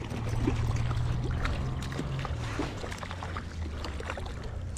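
Hooked coho salmon splashing and thrashing at the water's surface as it is brought to the net, with scattered short splashes over a steady low hum that drops away about two seconds in.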